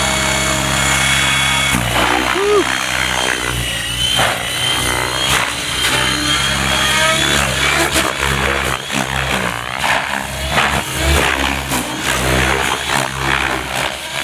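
Radio-controlled helicopter running in flight: a steady whine for about the first two seconds, then its pitch rises and falls over and over as it manoeuvres.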